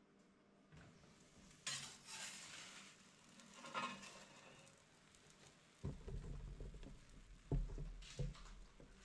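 Faint kitchen handling sounds from an electric countertop pizza oven: its metal door opening, then a wooden pizza peel scraping over the oven floor as the pizza is slid out. A series of low knocks and thumps follows, the loudest a little past halfway, as the pizza is carried and set down.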